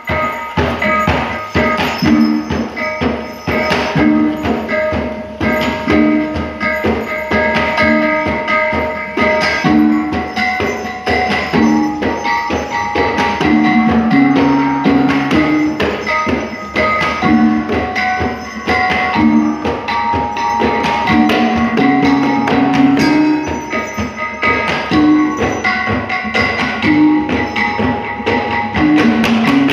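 Traditional Dayak dance music of tuned struck percussion and drums, with sharp strikes over ringing pitched notes and a short low figure repeating about every two seconds.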